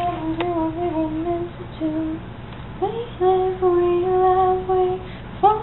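A woman's voice singing a slow tune without clear words, in long held notes that waver slightly. It breaks off briefly about two seconds in, then slides up into a longer held note.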